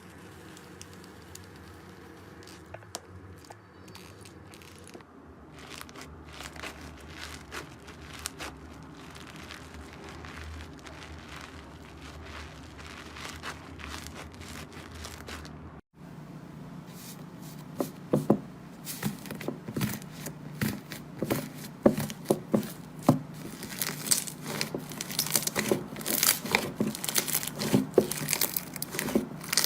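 Slime being worked by hand, giving a soft crinkling crackle. After a cut about 16 seconds in, the crackle turns louder, with many sharp clicks and pops.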